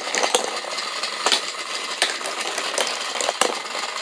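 A small battery-powered toy train motor whirs steadily. Irregular plastic clicks come from the playset's red wheel as it is turned by hand.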